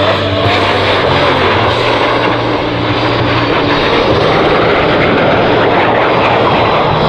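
Jet noise of a formation of CT-114 Tutor training jets, each with a single turbojet, flying past as a steady roar. It grows a little fuller about halfway through.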